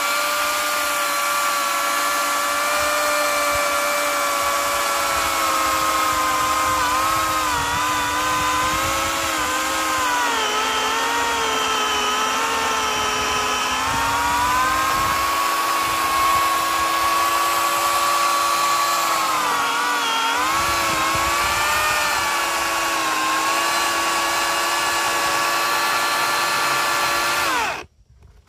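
Makita corded electric chainsaw cutting through a thick log: a steady motor whine whose pitch sags several times as the chain bites into the wood, then stops suddenly near the end.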